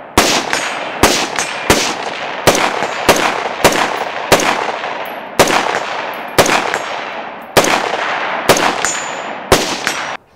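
A steady string of about a dozen rifle shots from an AR-style rifle, roughly one a second, each followed by a long echo fading away. Some shots are followed by a faint metallic ring from hits on a steel target.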